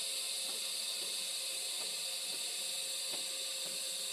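TIG welding arc burning steadily: an even hiss with a faint steady hum and a few soft ticks now and then.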